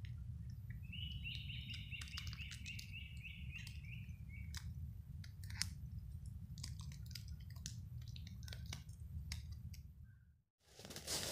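A songbird sings a rapid trill of evenly repeated high notes lasting about three seconds, over a steady low rumble and scattered light clicks. The sound fades out near the end.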